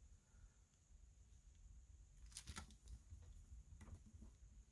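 Near silence, with a few faint light taps and rustles about halfway through as a plastic stencil is handled and pressed flat on card.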